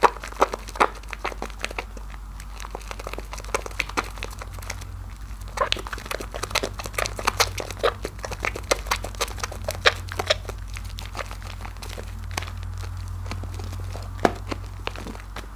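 Hands kneading a bar of soap in thick lather: wet squishing with quick crackling pops of foam, coming in irregular flurries.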